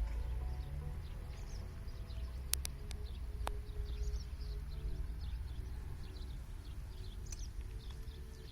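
Yamaha XT 660 X single-cylinder four-stroke engine idling with a lumpy, rhythmic thump. Birds chirp throughout, and there are two sharp clicks in the middle.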